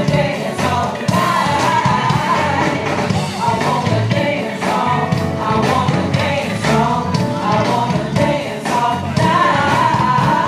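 A live band with drums and bass plays a soul/R&B groove while several backing singers sing a melody in harmony over it.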